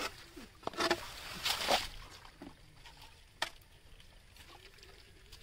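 Muddy stream water splashing and squelching in a few short bursts during the first two seconds, with a single sharp knock about three and a half seconds in; the rest is faint.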